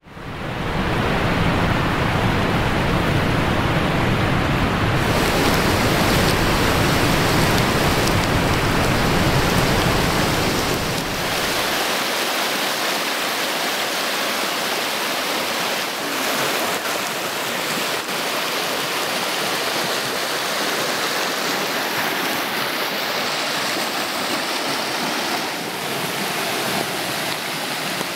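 Fast floodwater rushing and churning in a flash-flooded creek that usually carries only a trickle. A deep rumble lies under the rush for about the first twelve seconds, then drops away and the rushing goes on a little quieter.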